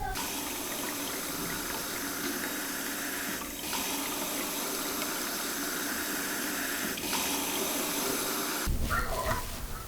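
Water running steadily with an even rushing hiss, briefly interrupted about three and a half seconds in, then giving way near the end to short voice-like sounds.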